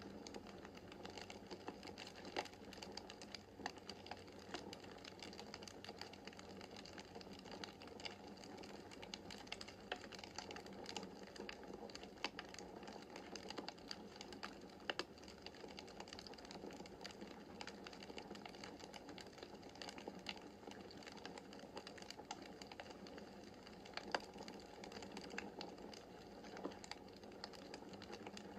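Wood fire crackling in a fireplace: a steady soft hiss under frequent irregular pops and snaps, a few of them sharper and louder than the rest.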